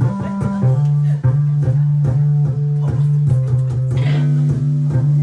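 Live band music: a bass guitar holding a heavy low line under plucked guitar notes, with a steady beat of about two to three strokes a second.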